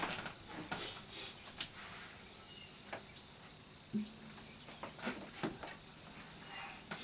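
Crickets chirping steadily in a high band, over scattered knocks and rustles as an acoustic guitar is picked up and handled. About four seconds in, a knock on the guitar sets a low string ringing briefly.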